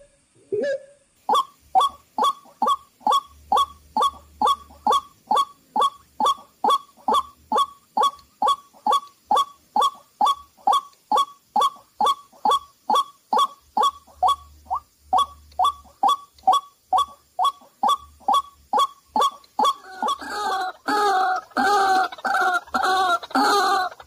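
White-breasted waterhen calls: a long, even series of short, clipped notes, about two a second, then from about twenty seconds in a louder, harsher, more crowded run of calls.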